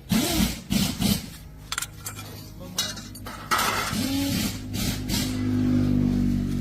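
An engine revved in short blips that rise and fall in pitch, then held at a steady speed from a little past the middle, with scattered metallic clinks and knocks.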